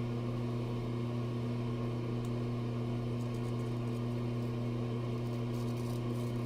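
Steady low electrical hum that does not change, with faint light scraping of a straight razor over stubble near the end.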